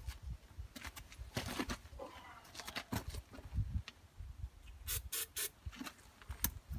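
Scattered knocks, clicks and rubbing from handling parts and tools; no engine is running.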